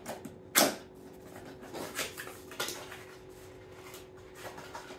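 Hard plastic knock about half a second in, then a couple of lighter clicks and taps as a power-station USB module is handled. A faint steady hum runs underneath.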